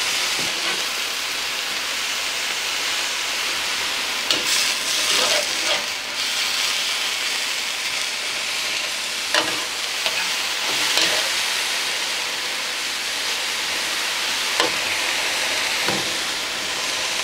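Lion's mane mushroom pieces sizzling steadily in hot oil in a pan, with a few sharp scrapes and taps of a metal spatula against the pan as they are turned over.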